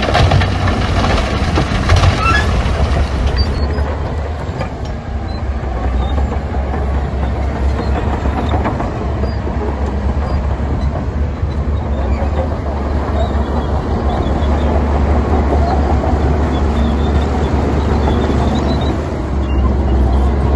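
Heavy diesel earthmoving machinery running under load: a steady low engine rumble with continuous rattling and crunching of stone fill.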